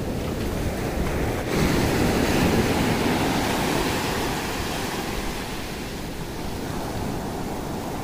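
Sea surf on a sandy beach: a wave breaks about a second and a half in and its wash slowly fades away, with wind on the microphone underneath.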